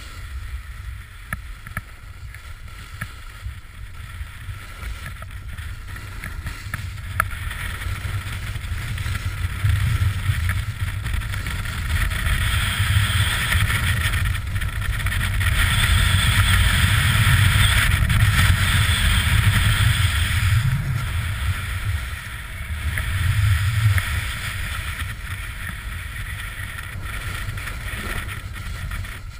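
Wind rushing and buffeting over a GoPro's microphone at downhill speed, mixed with the hiss and scrape of skis and a snowboard sliding on packed snow. It builds to its loudest in the middle, drops briefly, surges once more, then eases off.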